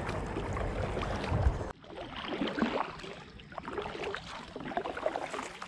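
Kayak paddling on a river, with water splashes and drips from the paddle. A heavy low rumble on the microphone cuts off suddenly about a second and a half in, leaving quieter, irregular water sounds.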